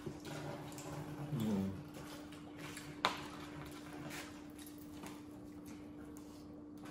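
Mouth sounds of people eating pizza and chicken wings: chewing and wet lip smacks with scattered small clicks, one sharper click about three seconds in. A short low murmur comes about a second and a half in, over a steady low hum.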